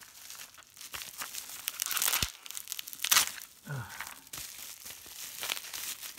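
Plastic bubble wrap crinkling and crackling as it is pulled open by hand, with the sharpest crackle about three seconds in.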